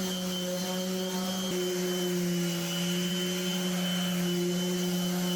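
Orbital sander running steadily as it sands the epoxy-coated plywood inside the hull. Its motor hum shifts slightly in pitch about a second and a half in.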